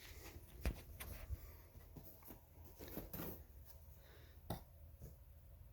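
A plexiglass sheet and grooved wooden blocks being handled and set up for a sneeze guard: a few light, separate knocks and taps. The sharpest comes about two-thirds of a second in, with others around three seconds and four and a half seconds in.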